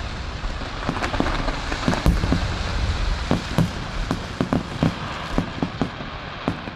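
Fireworks display going off: a dense crackling hiss with many sharp pops and bangs, several a second.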